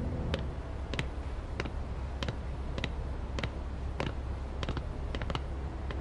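Footsteps of hard-soled shoes on a hard floor: sharp clicks at a steady walking pace, about every half second, over a low steady hum.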